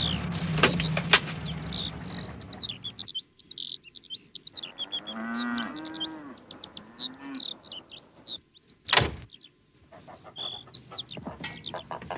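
Farmyard soundtrack effects: small birds chirping steadily, with a low, wavering farm-animal call, like a cow lowing, in the middle. There are two sharp clicks about a second in and one loud bang about nine seconds in.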